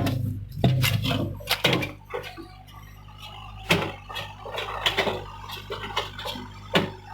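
Hyundai excavator working: a steady low engine hum with sharp clanks and knocks every second or two.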